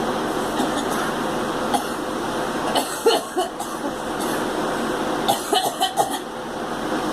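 A girl coughing in two short fits of several coughs each, about three seconds in and again about five to six seconds in, over a steady background hiss.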